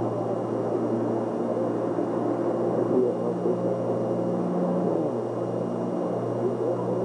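A steady low humming drone made of several held tones, with no clear start or stop.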